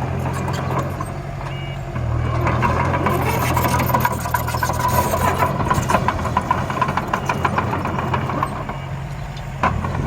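Miniature remote-control construction vehicles working: a steady low engine drone that gets louder about two seconds in, with a rapid clattering rattle from about three to seven seconds in.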